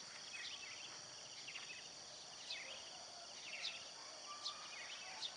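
Small birds chirping faintly: short high chirps that drop in pitch, about one a second, over a steady high-pitched drone of insects.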